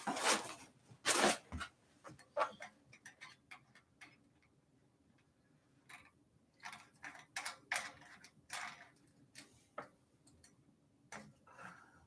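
Irregular clicks, taps and rustles of hands handling e-bike parts while fitting the front wheel. The loudest are in the first second and a half, then a quiet stretch of about two seconds, then more scattered clicks.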